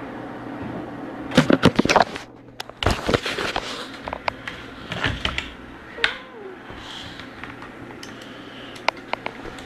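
Handling noise from the recording device being picked up and moved about: a run of clicks, knocks and rubbing, loudest between about one and four seconds in, then a few scattered clicks, over a steady low hum.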